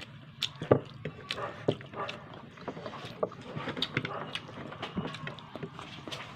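Eating sounds: a spoon and fork clicking and scraping on a plate of rice, with chewing and mouth sounds, over a low steady hum. The clicks come irregularly, the loudest less than a second in.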